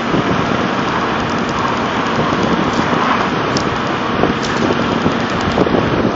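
Pickup truck driving on a snow-covered road while towing a plow drag, heard through a microphone held out the driver's window: a steady rush of engine and tyre-in-snow noise with wind on the microphone.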